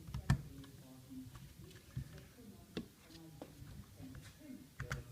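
Scattered metal clicks and knocks of tools and screws being worked on an indoor trainer's hub assembly, about five irregular taps, the loudest near the start.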